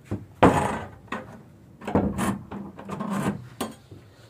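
Footsteps and knocks on bare wooden stairs and floorboards, irregular, with the loudest knock about half a second in, and some rubbing of wood.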